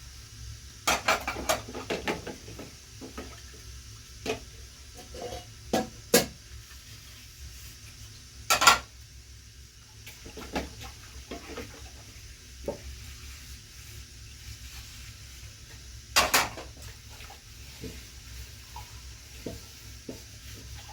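Dishes and metal utensils clinking and clattering now and then, with a few louder knocks, the loudest about eight and sixteen seconds in, over a faint steady hiss.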